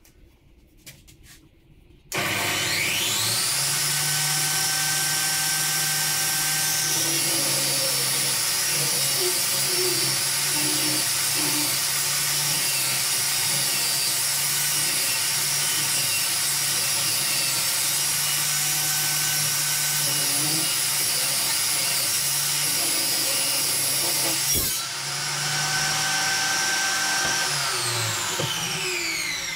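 Circular saw mounted in a Triton 2000 Workcentre, switched on about two seconds in with a rising whine, then running steadily while ripping a hardwood fence paling along the rip fence to straighten its second edge. The motor winds down with a falling whine just before the end.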